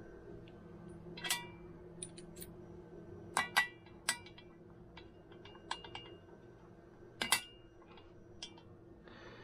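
Small metal parts of a KitchenAid stand mixer's gearbox clinking and clicking as they are handled and set down: a scatter of light, sharp clicks with a short metallic ring, the sharpest about three and a half and about seven seconds in, over a faint steady hum.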